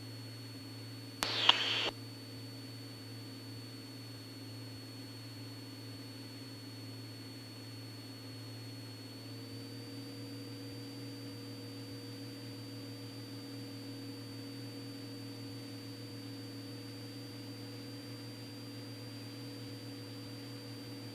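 Steady low drone of the Cessna 206 Stationair's piston engine and propeller on approach, with a faint constant high whine; the drone's pitch steps up slightly about nine seconds in. A short burst of hiss with a click at its start comes about a second in.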